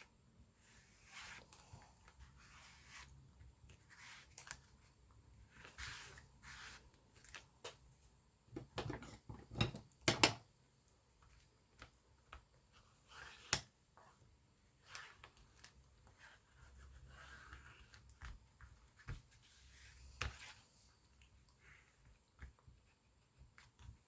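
Paper and cloth being handled and pressed down while gluing a book cover: scattered soft rustles and light taps, with a few louder knocks about nine to ten seconds in and a sharp click about thirteen seconds in.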